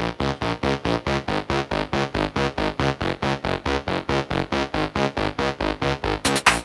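Electronic dance music: a synth chord chopped into rapid, even pulses, about six a second, with brighter hits coming in near the end.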